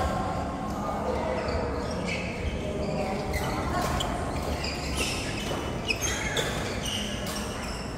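Sharp hits and knocks of a doubles match on an indoor court, coming at irregular intervals, with voices in the background.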